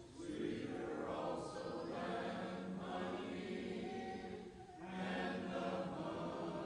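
A church congregation singing a hymn a cappella in parts, the chorus "Sweeter also than honey and the honeycomb." There is a short breath break between phrases about four and a half seconds in.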